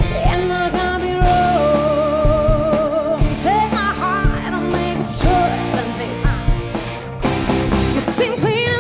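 A woman singing with a live rock band: long held notes with vibrato over electric guitar, keyboard, bass and drums.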